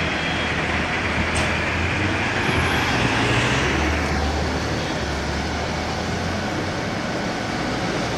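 Road traffic: vehicle engines running and passing on a busy street, with a steady low engine hum and a wash of tyre and engine noise that eases after about four seconds.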